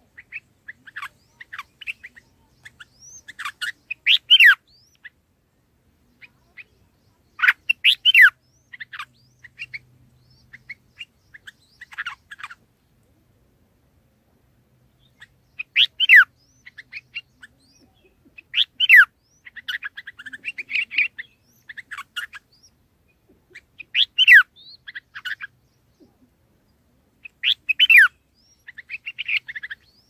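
Red-whiskered bulbul calling: a loud, sharp note sweeping down in pitch every few seconds, with softer chattering notes between them. The calls pause briefly about halfway through.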